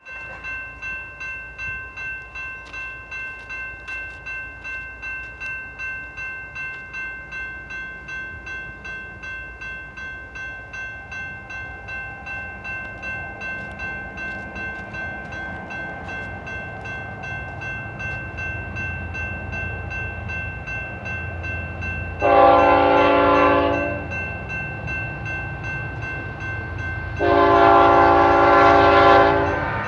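Grade-crossing bell ringing steadily, while the rumble of an approaching BNSF freight train grows louder. About 22 seconds in and again near the end, the lead locomotive, a GE ET44C4, sounds two long air-horn blasts for the crossing.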